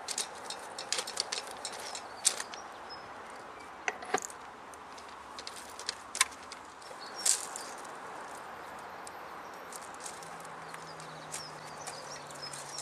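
Scattered metal clicks and knocks from the impact wrench rail carrier being handled and set on the track, with a few sharper knocks near the middle. A steady outdoor hiss and faint bird chirps lie beneath.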